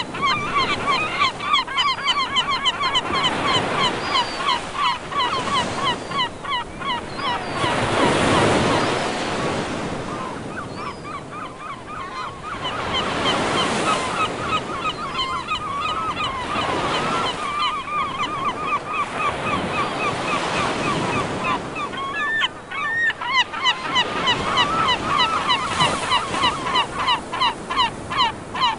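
Seagulls calling in long runs of rapid, repeated short calls, several runs one after another, over ocean surf washing in with swelling noise between the runs.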